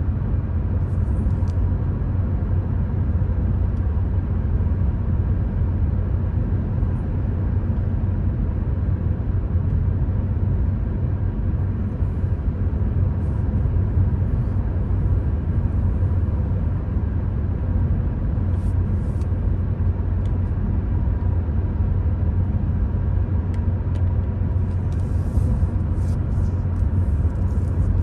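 Steady low rumble of a car's road and engine noise as it drives along, heard from inside the car.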